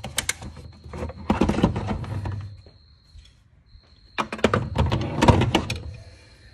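Two bursts of knocks and thuds with a low rumble, the first from the start to about two and a half seconds in and the second from about four to six seconds in, with a faint steady high whine behind them.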